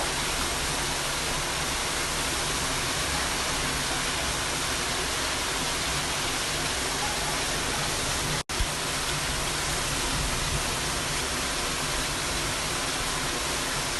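Heavy rain pouring down in a steady, even rush, broken by a split-second gap about eight and a half seconds in.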